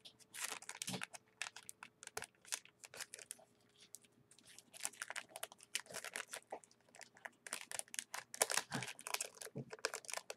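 Clear plastic bag crinkling in short, irregular rustles as it is handled and worked open, busiest in the second half.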